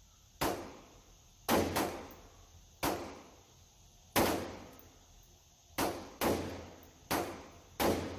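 Gunshots in an indoor shooting range: about ten sharp reports at uneven intervals, each trailing off in a short echo. Among them are single aimed shots from a CZ Bren 805 S rifle firing 5.56 ammunition.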